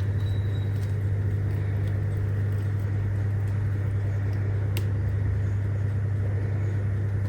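A steady low hum, unchanging throughout, like a motor or appliance running.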